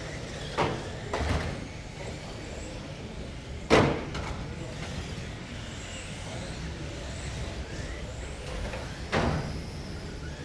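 1/12-scale electric GT12 RC cars lapping a carpet track: a faint whine of motors rising and falling over steady running noise. Sharp knocks, the loudest about four seconds in, others near the start and about nine seconds in.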